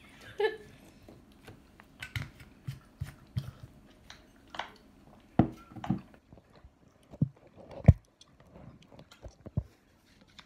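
Close mealtime eating sounds: chewing and biting with irregular clicks and knocks of a fork and dishes. A few louder thumps come about five and a half and eight seconds in.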